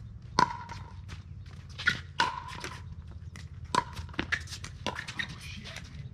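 Pickleball rally: paddles striking the plastic ball in a string of sharp pocks, the loudest about half a second in, with fainter ticks between.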